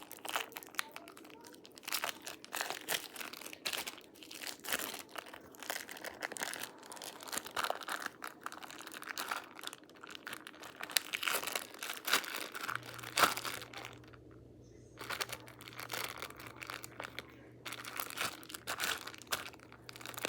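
Hands kneading and stretching a sticky white slime, giving an irregular run of small crackling, popping clicks. The slime is old and has gone sticky from being kept in a bag.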